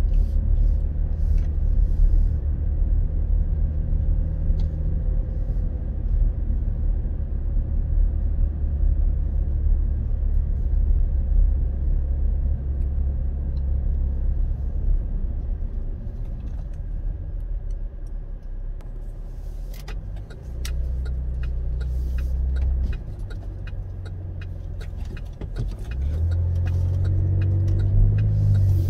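Car engine and road noise heard from inside the cabin as the car drives slowly, a steady low rumble. It eases off about two-thirds of the way through as the car slows and idles, and a regular ticking starts there. The rumble rises again near the end as the car pulls away.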